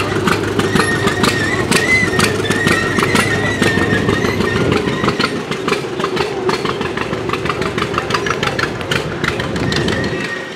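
Machinery running: a low engine drone with irregular clattering clicks and a steady high whine over it, dropping off sharply near the end.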